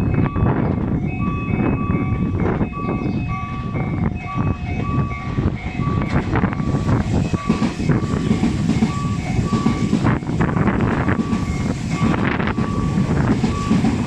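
Level-crossing warning bells ringing over and over in a steady repeating pattern, under heavy wind noise on the microphone. From about six seconds in, a Tobu 500 series Revaty limited express electric train runs through, its rail and running noise swelling as it passes underneath.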